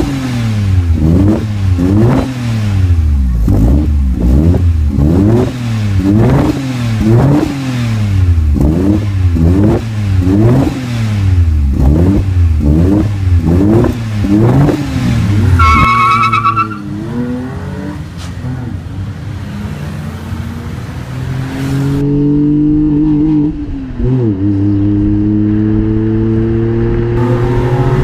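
Hyundai EON with an aftermarket exhaust, its engine revved in quick blips about a dozen times, each rising and falling, then settling lower. Later the car accelerates away, the engine pitch climbing steadily, with one dip for a gear change.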